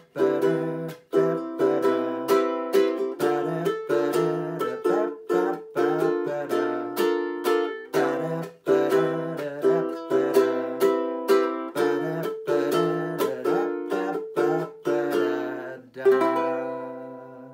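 Ukulele strummed in a syncopated salsa-swing pattern with percussive palm blocks (down, block, up, down, block, up, up, up, down, down, up), moving between C major 7 and B flat major 7 chords. A final strum near the end rings out and fades.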